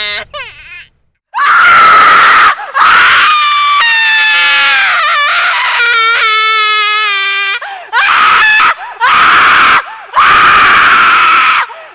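A person screaming: about five very loud, piercing shrieks in a row with short breaks between them, the longest in the middle, some sliding up and down in pitch.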